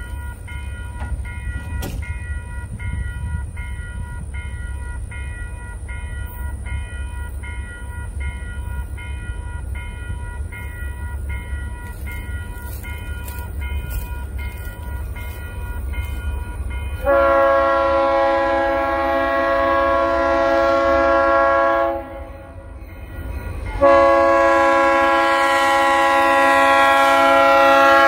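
Diesel freight locomotive's multi-chime air horn sounding two long blasts, each about five seconds, the first starting about 17 seconds in, as the train approaches. Before the horn there is a steady low rumble.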